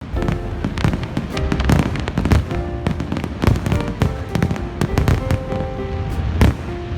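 Aerial fireworks going off in rapid succession, a dense string of bangs with a sharp, loud one near the end, over music with held notes.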